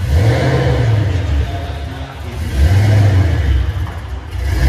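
Car engine revving in swells, a low rumble that rises and falls back about every two seconds.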